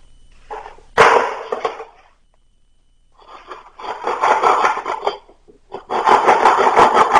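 A sharp knock on wood about a second in, then two spells of rapid rasping strokes as a long blade cuts into a wooden stick.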